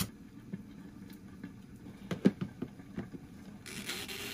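Kitchen knife cutting through broccoli stems on a plastic cutting board: a few sharp knocks and cracks, the loudest about two seconds in. A short hiss comes near the end.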